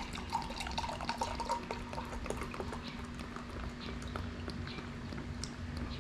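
Beer poured from a bottle into a glass: a trickling pour for the first couple of seconds, then the foam fizzing and crackling with many small pops.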